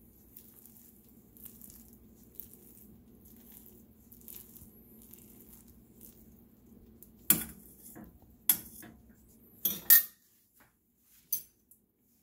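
A metal fork raking through cooked rice in a stainless steel saucepan, with faint scraping ticks. Then, from about seven seconds in, a run of five sharp metallic clinks of the fork against the pot.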